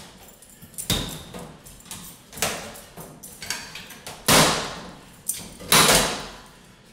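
Sheet metal of a recessed paper towel dispenser being wrenched back and forth by hand to break its spot welds, giving about half a dozen irregular metallic bangs and scrapes. The loudest come in the second half.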